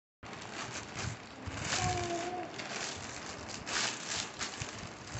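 Thin plastic courier mailer crinkling and rustling irregularly as hands open it and draw out a shirt packed in a clear plastic sleeve.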